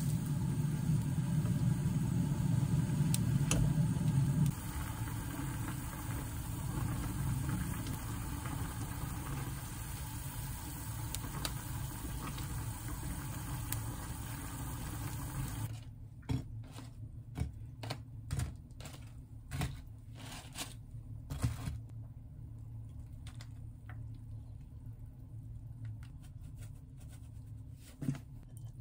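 Steady low rumble and hiss of a pot cooking on a gas burner as tongs stir it. About halfway through this stops abruptly, leaving a quieter room with scattered clicks and taps as a plastic pouch of sauce is handled.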